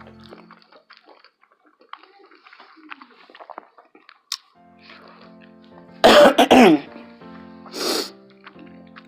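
Close-miked mouth sounds of a person eating: soft chewing and small clicks, then about six seconds in a loud two-part cough, and a shorter rough throat sound a second or so later. Soft background music plays under it.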